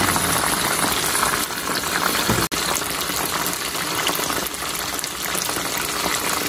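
Breaded chicken pieces deep-frying in hot oil: a steady, dense sizzle of bubbling oil with fine crackles, broken for an instant about two and a half seconds in.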